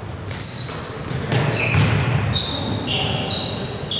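Basketball players' sneakers squeaking on a hardwood gym floor: several short, high squeaks, over the low thuds of a basketball bouncing.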